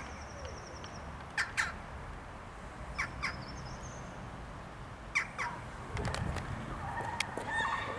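Jackdaws calling: short, sharp calls, mostly in pairs, repeated every couple of seconds, with a thin high trill between them.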